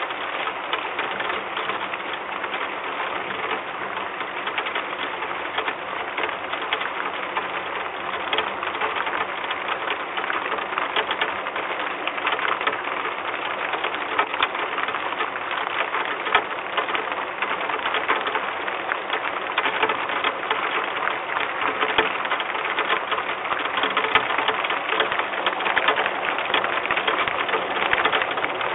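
Rain pattering on the wooden nest box: a dense, steady crackle of drops that grows a little heavier in the last few seconds.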